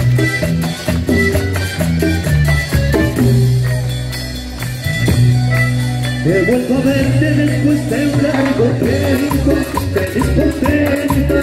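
A live tropical dance band playing: accordion melody over electric bass, guitar and drums with a steady beat, recorded from the crowd through the PA.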